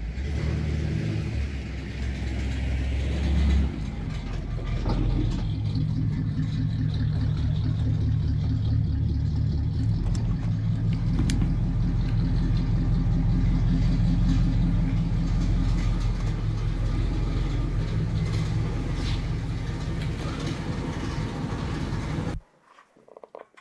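A 1960s Cadillac's V8 engine running at idle, a steady low rumble with an even pulse. The car has an exhaust rattle from a loose flange on the Y-pipe.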